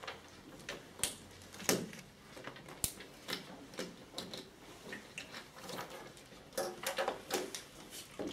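Scattered small clicks, knocks and rustles of people handling things at desks in a quiet room: plastic water bottles and sheets of paper. The knocks come irregularly, several a second at times, with no steady sound under them.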